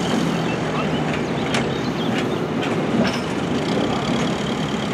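Backhoe loader's diesel engine running as the machine moves and works its front bucket, with a few short metallic knocks between about one and a half and three seconds in.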